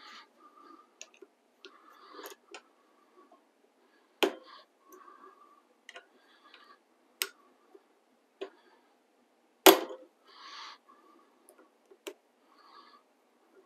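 Screws being worked out of the sprocket on a DEWALT 735X thickness planer with a 4 mm hand tool: scattered sharp metal clicks, the loudest a little under ten seconds in, between short scraping, squeaky sounds.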